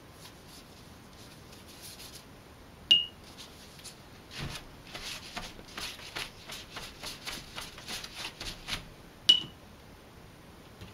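A paintbrush clinks against a glass water jar with a brief ringing tone, once about three seconds in and again near the end. In between, a run of quick brush strokes rubs on paper, two or three a second.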